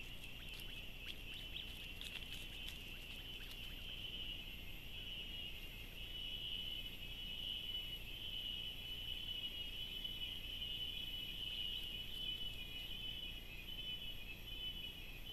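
Steady, high-pitched chorus of insects trilling, with a few faint ticks or rustles in the first few seconds.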